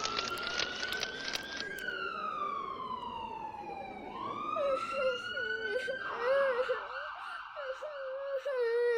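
Emergency-vehicle siren wailing, rising and falling slowly, then switching to a fast warble about six seconds in, with sharp crackling during the first two seconds. About halfway through, a person's wavering wail of crying comes in under the siren.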